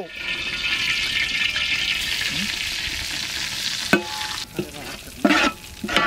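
Hand-pounded spices sizzling in hot groundnut oil in an aluminium pot, a steady frying hiss. About four seconds in, a metal ladle knocks against the pot and starts stirring, scraping in short strokes as the sizzle dies down.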